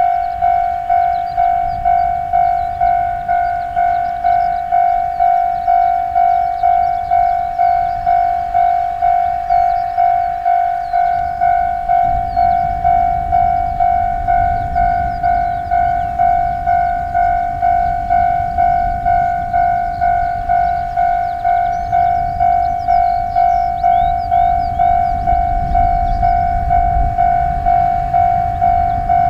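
Level crossing's electronic warning bell ringing in even, repeating strokes, about one and a half a second. From about twelve seconds in, a low rumble grows beneath it as the H100 'DECMO' diesel-electric railcar approaches the crossing.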